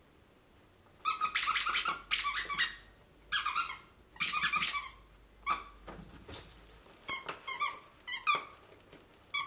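Squeaker inside a plush monorail dog toy squeaking over and over, starting about a second in: quick runs of squeaks at first, then shorter single squeaks spaced out toward the end.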